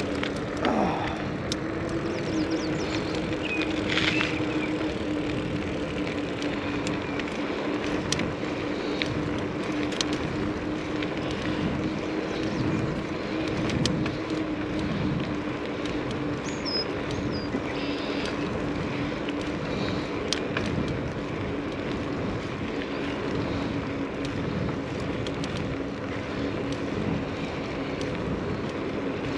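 Mountain bike being ridden: a steady rushing noise of the ride with one steady hum throughout and scattered clicks and rattles.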